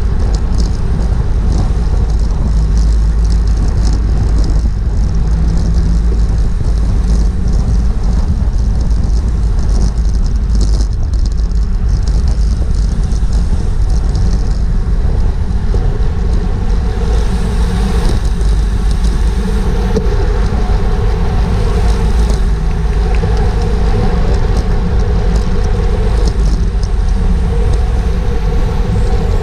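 Wind rushing over a GoPro action camera's microphone while riding at racing speed in a bicycle criterium: a loud, steady rumble with faint clicks over it.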